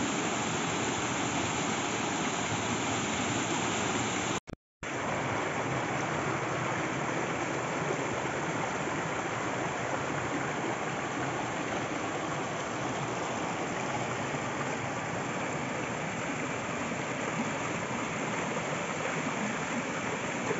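Shallow forest stream cascading over rocks in a small waterfall, rushing steadily. The sound cuts out for a split second about four and a half seconds in, then the same rushing carries on.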